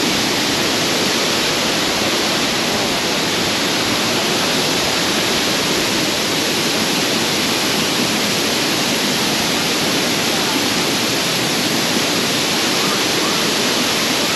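Waterfall with a strong monsoon flow crashing into its pool: a loud, steady rushing roar that does not change.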